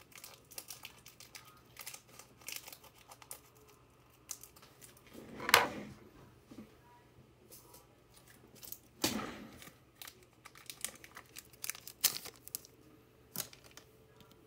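Foil trading card pack wrapper crinkling and being torn open, with many small clicks and rustles of cards being handled. There are two louder rustling swells, about five and nine seconds in.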